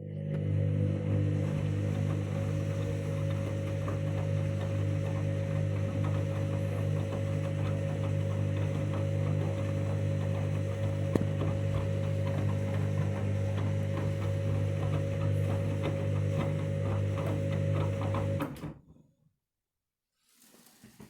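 Candy washing machine running on its main wash, a steady hum that cuts off abruptly about eighteen seconds in. The machine is still washing and not yet draining.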